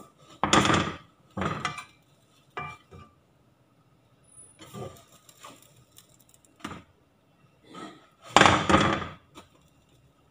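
Spatula scraping and knocking against a nonstick frying pan as soufflé pancakes are slid under and flipped: a string of short scrapes, the longest and loudest near the end.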